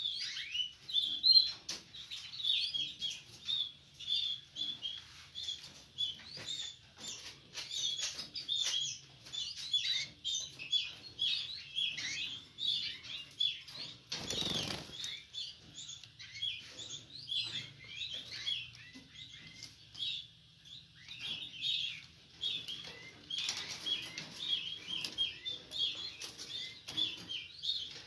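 Caged domestic canaries chirping and singing, a continuous run of short, high, quick notes. About halfway through there is a brief rush of noise.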